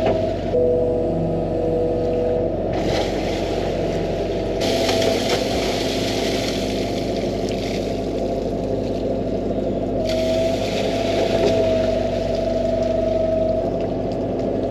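A 13-tonne excavator's diesel engine runs steadily under working load, with a hydraulic whine that wavers in pitch as the arm and bucket move. Stretches of hiss come and go over it.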